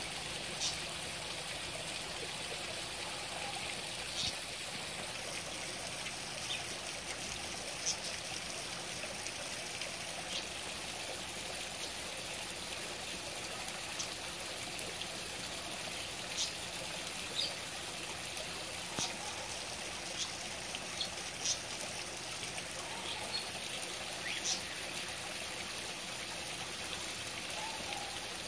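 Small backyard pond waterfall spilling over rocks, a steady trickling and splashing of water, with short high-pitched sounds scattered every second or two.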